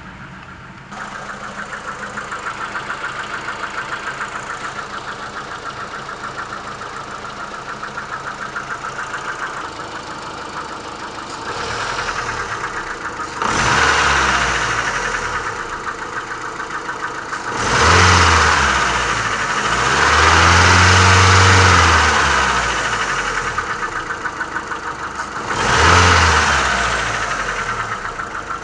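Mitsubishi Lancer IX petrol engine idling with a regular knock, blipped briefly three times and held at higher revs once for a few seconds, with the oil level below minimum. The owner suspects the knock is a connecting rod knocking against the crankshaft.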